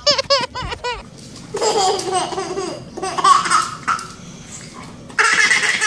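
A baby laughing in several bursts, with short pauses between them.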